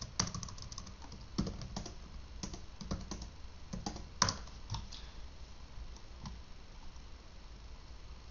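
Typing on a computer keyboard: a run of key clicks, thick for the first few seconds and thinning out toward the end, with one sharper keystroke a little past four seconds in.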